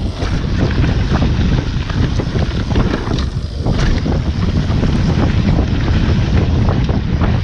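Wind buffeting the microphone during a fast mountain-bike descent, with the tyres rolling over gravel and frequent short knocks and rattles from the bike over bumps.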